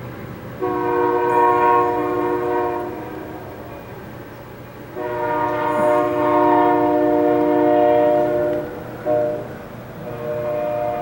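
Diesel freight locomotive's air horn, several notes sounding at once, blowing the grade-crossing signal: two long blasts, a short one, and a long one starting near the end. Under it is the steady rumble of the passing train.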